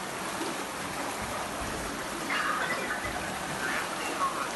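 Floodwater rushing along a flooded street: a steady noise of fast-flowing water.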